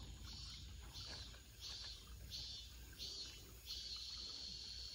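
Faint high-pitched insect chirring, probably cicadas, coming in short pulses about every 0.7 s and turning into one steady drone about three and a half seconds in, over a low outdoor rumble.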